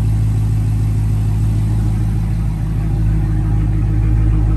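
Dodge 392 Scat Pack's 6.4-litre HEMI V8 idling steadily through its factory exhaust, with a deep, even low note.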